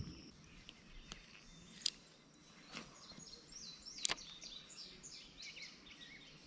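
A bird chirping in a quick run of short falling notes from about three seconds in, over a faint outdoor background, with two sharp clicks, about two and four seconds in.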